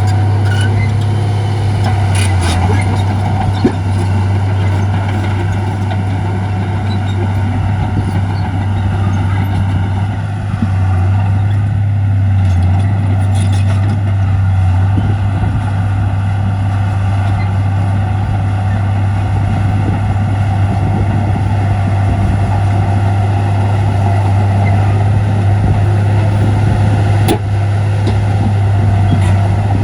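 Heavy diesel engine of earthmoving machinery running steadily under load, with a few sharp metallic clanks over the drone.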